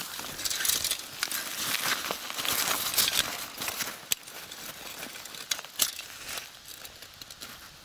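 Dry grass and roots rustling and crackling as a soil-caked metal bar is worked loose from the turf by hand, with many sharp clicks and snaps; it dies down near the end.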